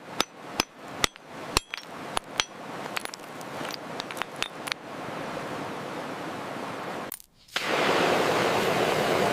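Sharp hammer taps with a short metallic ring, about two a second, over a rising hiss. The taps stop about five seconds in, leaving a steady rushing noise that cuts out briefly about seven seconds in and comes back louder.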